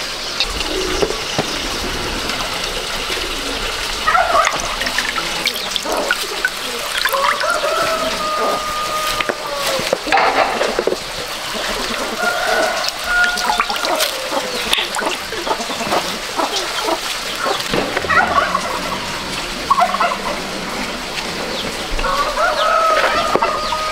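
Domestic fowl calling several times, short arching calls, over the wet squelching, drips and light knocks of lemons being squeezed by hand over a metal basin.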